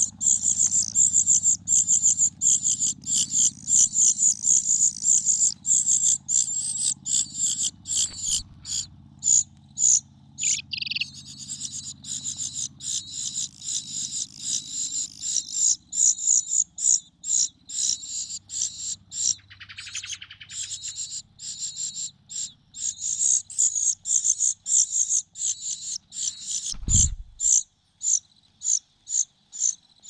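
Nestlings begging in the nest: rapid, high-pitched cheeps repeated several times a second, coming thick at first, thinning out in the middle and picking up again. A short falling call sounds about ten seconds in, and a single dull thump near the end.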